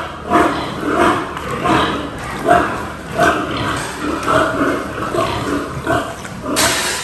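Many pigs screaming, short calls overlapping and repeating about once or twice a second: frightened pigs penned in floodwater. About six and a half seconds in there is a brief rushing noise.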